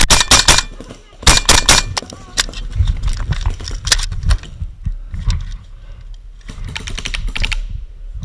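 Paintball markers firing in rapid strings of shots. Two strings come in the first two seconds from a Valken M17A2 magfed marker, and another fast string comes near the end.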